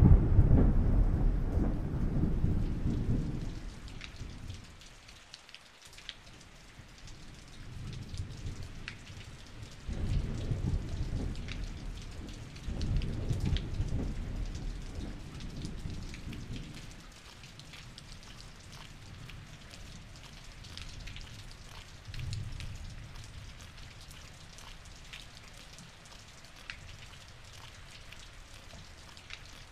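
Steady rain with a light patter of drops, under rolling thunder. A loud rumble right at the start dies away over about four seconds, two more swell up about ten and thirteen seconds in, and a fainter one comes a little after twenty seconds.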